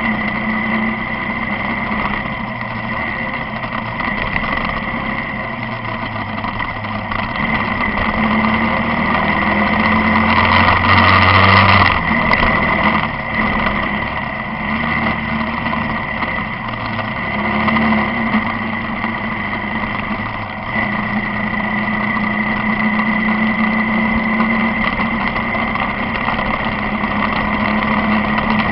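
Motorcycle engine running at road speed, with wind and road noise. The sound swells louder for a couple of seconds around eleven seconds in, with a deeper rumble, then settles back.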